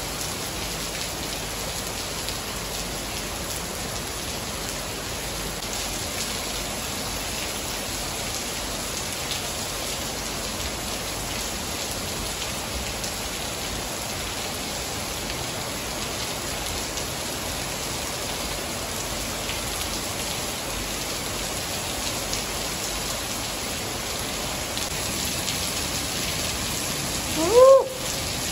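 Heavy rain pouring steadily, a dense even hiss of rain lashing down on surfaces. Near the end, a brief rising pitched sound cuts in and is the loudest moment.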